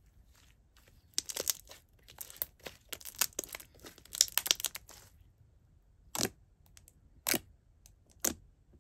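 Handmade jiggly milky-clear slime being stretched, squeezed and pressed by hand, giving off rapid clicks and pops. A dense flurry of clicks comes from about one to five seconds in, followed by three separate louder pops about a second apart.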